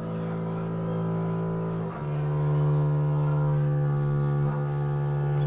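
Double bass playing long, low bowed notes, each held steady; it moves to a new note about two seconds in.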